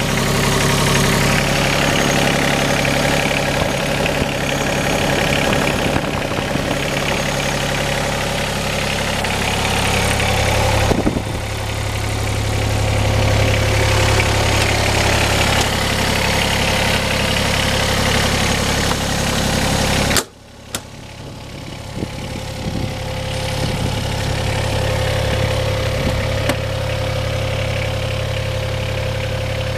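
John Deere 26G mini excavator's diesel engine idling steadily. About two-thirds through, the sound drops sharply, then builds back up over the next few seconds.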